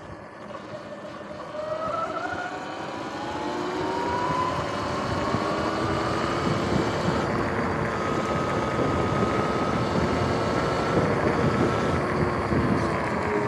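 Sur-Ron X electric dirt bike's motor whining and rising in pitch as the bike accelerates, then holding a steadier whine at speed, with tyre and wind rush on the microphone.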